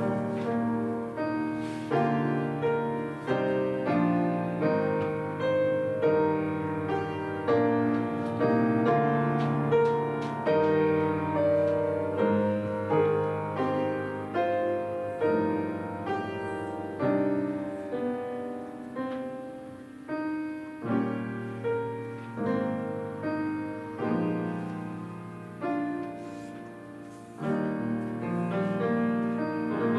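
Piano playing a slow, gentle piece: chords struck one after another and left to fade. It grows quieter near the middle and picks up again a few seconds before the end.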